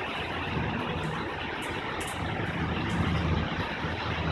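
Low rolling thunder after a lightning flash, the rumble swelling and fading a few times over a steady hiss of rain.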